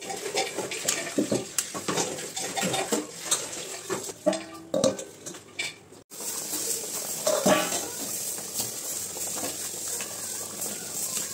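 A metal spoon clinking and scraping against a steel kadhai of egg curry, with a steel lid clattering and ringing briefly. After a break about six seconds in, the curry bubbles at a steady boil with a few more scrapes of the spatula.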